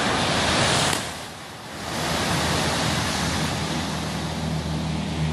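Rush of sea surf and wind, swelling in the first second, easing for a moment, then building again to a steady wash.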